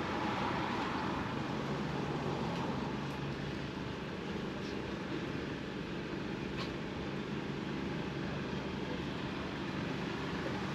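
Steady street traffic: vehicle engines running with a low hum, as at a busy roadside bus stop.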